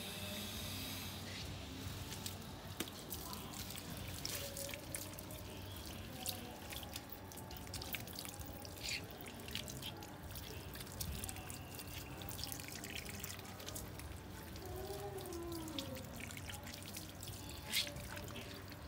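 Water running from an outdoor tap onto a small dog being bathed and splashing onto the concrete, with many scattered drips and splatters.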